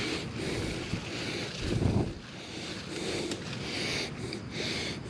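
Wind buffeting the microphone in uneven gusts, with a louder gust about two seconds in.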